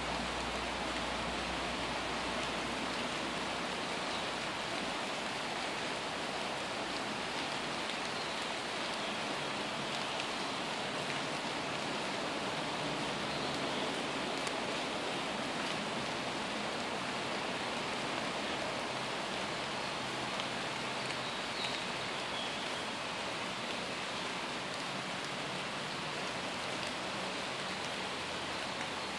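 Steady rain falling on tree foliage, an even hiss of drops with a few louder drips standing out.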